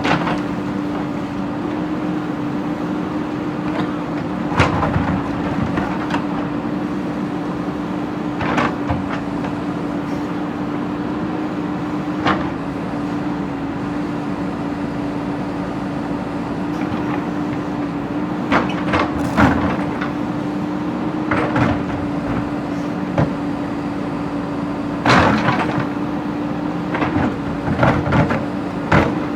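JCB backhoe's diesel engine running steadily, with irregular clanks and knocks as the bucket works against broken brick and stone. The knocks come every few seconds and bunch together near the end.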